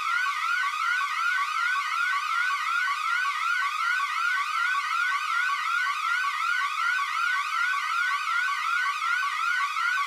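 Electronic alarm sound effect: a fast rising sweep in pitch that snaps back and repeats about three times a second, steady throughout. It is the stock alarm tone said to be the origin of Martinique's emergency alert signal.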